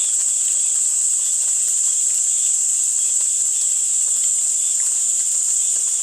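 A steady, high-pitched insect chorus, like crickets, chirring without a break under the pause in conversation.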